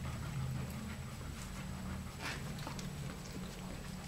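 Alaskan Malamute puppies whimpering faintly while nursing, with the mother dog panting.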